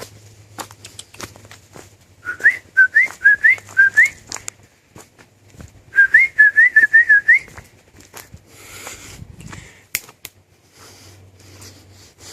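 Two runs of short, rising whistled notes, about four and then about six, a couple of seconds apart and loud against soft clicks and rustling.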